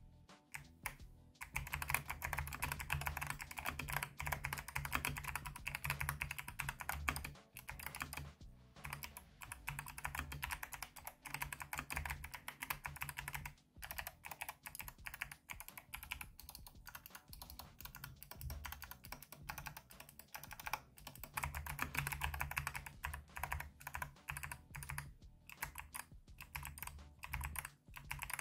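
Typing on a mechanical keyboard fitted with Kailh Box Jellyfish clicky switches: a fast, dense run of sharp key clicks from each switch's click bar, light and airy in tone. A few sparse keystrokes open, then the typing picks up about a second and a half in and carries on with only a few short pauses.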